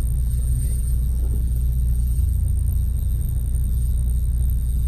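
A steady, low engine drone runs without a break, with no strokes or pauses.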